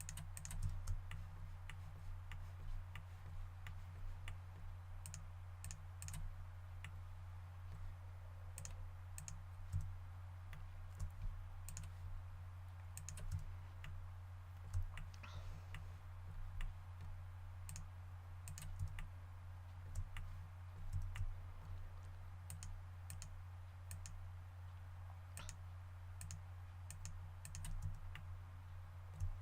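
Irregular clicks of a computer mouse and keyboard being worked, a few keys or buttons at a time with short pauses between, over a steady low electrical hum.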